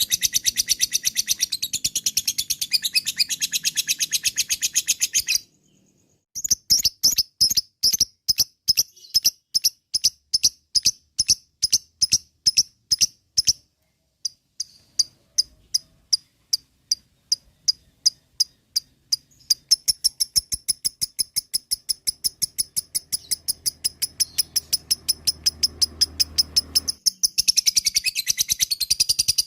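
Lovebird ngekek: long runs of rapid, sharp, evenly repeated chattering calls, the excited call of a worked-up lovebird. A dense fast run breaks off about five seconds in. It comes back as slower separate calls that thin out, then picks up into a fast run again, dense near the end.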